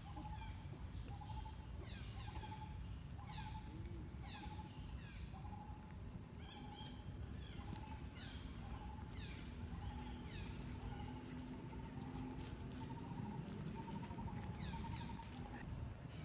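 Birds calling: one repeats a short note about once a second, while others give quick falling chirps, over a steady low rumble.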